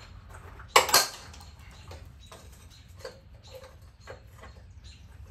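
Metal clanks and scrapes of a long hand tool being worked against the rusty steel bed crossmember and its bracket. Two sharp clanks come close together about a second in, then faint scattered clicks and scrapes.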